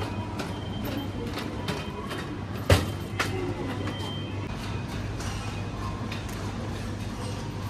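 A plastic shopping trolley rattling and clicking as it is pushed across a tiled supermarket floor, over a steady low hum. A sharp knock comes about two and a half seconds in, then a lighter one.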